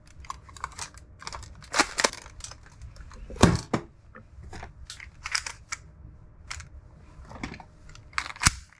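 Irregular short clicks and light knocks, the loudest about three and a half seconds in.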